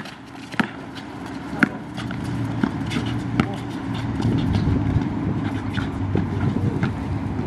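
A basketball bouncing on an outdoor asphalt court, sharp knocks in the first couple of seconds, with indistinct voices. From about two seconds in, a low steady vehicle rumble comes up underneath.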